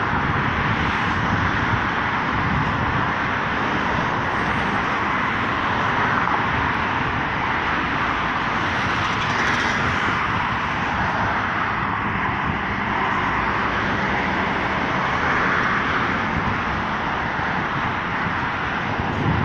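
Road traffic passing close by: a steady rush of car engines and tyres on the road surface.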